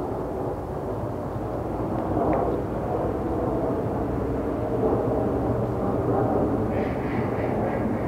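Steady low rumble of distant engine noise, with a higher sound joining near the end.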